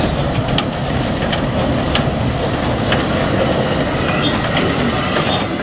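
Narrow-gauge steam locomotive rolling slowly past close by with its train: a steady rumble with scattered sharp clicks and knocks from the wheels and running gear on the rails.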